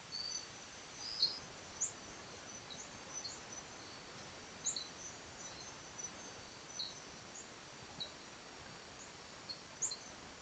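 Night-time rainforest chorus: scattered short, high chirps over a steady faint hiss.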